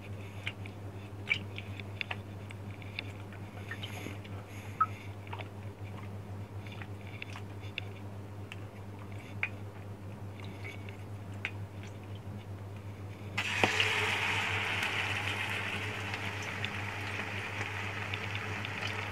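Chicken being worked by hand in a thick batter with small wet clicks and squelches, over a steady low hum. Then, about two-thirds of the way through, the batter-coated chicken goes into hot oil in a steel frying pan and a steady sizzle of deep-frying sets in and carries on.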